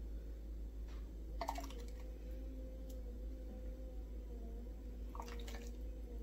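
Ladle knocking against an enamelled pot and a ceramic bowl as thick soup is scooped and poured, with two short clusters of clicks and a little liquid sound, about four seconds apart. A faint steady hum runs underneath.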